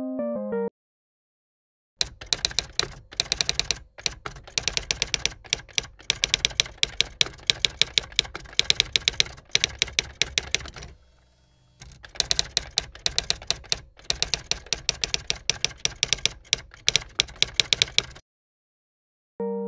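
Typing sound effect: rapid runs of typewriter-like key clacks, with a short break midway. Bright electric-piano music is heard briefly at the very start and returns near the end.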